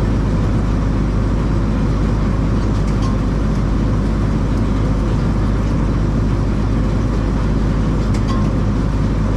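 Case IH 2388 combine harvester running steadily under load while cutting soybeans: a constant, even engine and threshing drone with a strong low hum.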